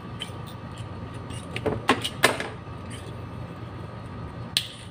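A few short knocks and rustles from hands handling the wiring work, a cluster about two seconds in and one more near the end, over a steady background hum.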